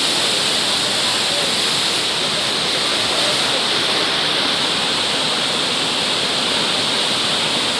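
Floodwater rushing, a loud steady wash of flowing water that does not let up.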